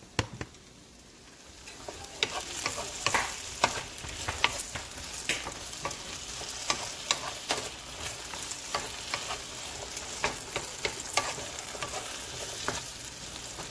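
Diced potatoes, onion and garlic sizzling as they fry in a nonstick pan, stirred with a wooden spoon that makes frequent light knocks and scrapes against the pan. The sizzle and stirring set in about two seconds in.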